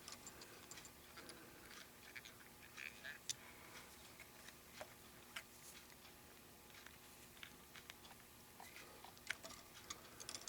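Near silence with faint, scattered small clicks and ticks from fly-tying tools and materials being handled at the vise.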